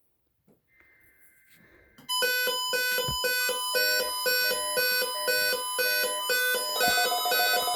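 Near silence with faint steady tones, then about two seconds in an abrupt, loud electronic tune of short repeated synthesised notes at changing pitches, in a steady rhythm, begins and carries on.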